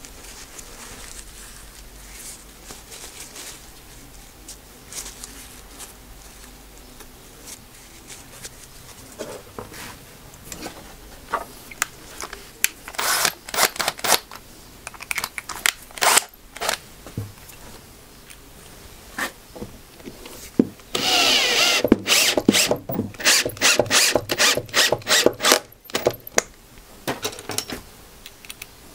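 Scraping, rubbing and clicking of small hand work as dried glue is cleaned off a drill bit. Scattered scrapes and clicks come first, then a dense run of scraping strokes about three quarters of the way through.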